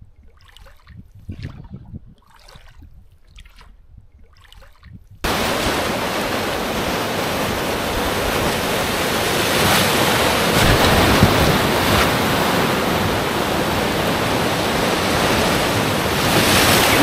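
Light, evenly spaced splashes, about one or two a second, of oars dipping into calm river water. About five seconds in, the sound cuts abruptly to a raft running whitewater rapids: a loud, steady rush of churning water.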